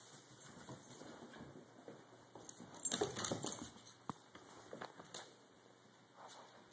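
Dachshunds playing on a hardwood floor: scattered scuffling and sharp clicks of claws on the wood, with a louder scuffle about three seconds in.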